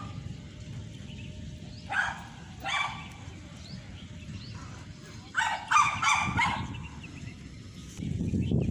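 A dog barking about five times, twice early and then three in quick succession a little past the middle, over a steady low rumbling noise that grows louder near the end.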